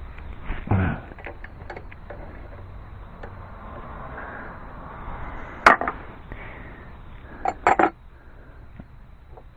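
Wrench and metal parts clinking and knocking in an engine bay while a power steering hose fitting is worked loose by hand. There is one sharp clack a little past halfway and a quick cluster of clicks near the end, with low handling noise between.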